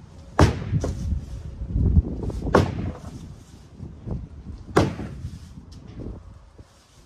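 A long-handled digging tool swung overhead and struck into the ground: three heavy strikes about two seconds apart, with lighter knocks and scraping between them.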